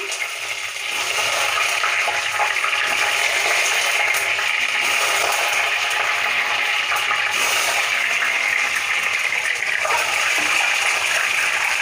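Whole boiled eggs frying in hot oil in a kadai: a steady sizzling hiss that grows louder about a second in.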